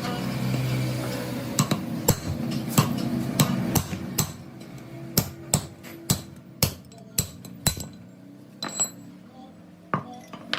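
A hammer striking metal in about fifteen irregular blows, some with a short ring, over a steady low hum.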